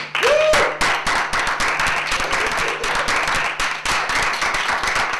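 A small group of people clapping, a dense irregular patter of hand claps, with a brief vocal exclamation just after it begins.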